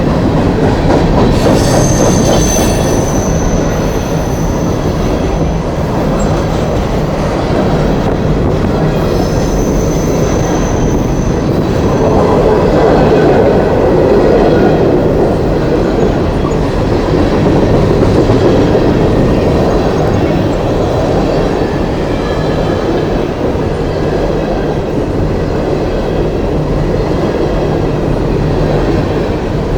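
Long coal train rolling past on the main line: a steady rumble of wheels on rail, with brief high wheel squeals about two seconds in and again around ten seconds in.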